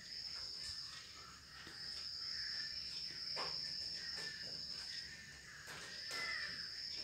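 A steady, high-pitched insect trill that breaks off briefly twice. Under it are faint scrapes and taps of a knife cutting soft coconut burfi on a steel plate.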